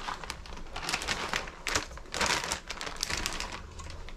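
Plastic bag of shredded cheddar crinkling and rustling in quick, irregular clicks as it is shaken out over a bowl, busiest about two seconds in.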